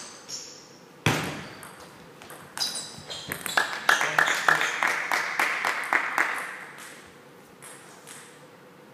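Table tennis ball clicks, then a sharp loud smack about a second in, followed by a few seconds of quick claps from spectators that die away.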